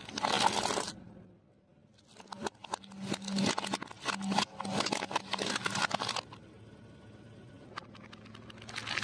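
Car tyre crushing brittle plastic on concrete: a short crunch right at the start, then, after a brief pause, about four seconds of rapid cracking and crackling as the tyre rolls over a plastic blister pack.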